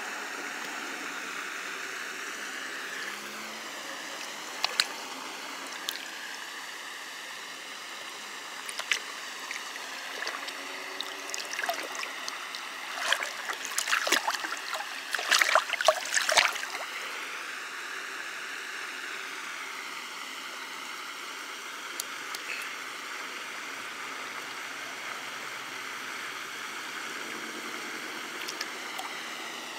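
A bass held by the lip at the surface of a pond, splashing and kicking in the water, with a cluster of splashes about halfway through, over a steady background hiss.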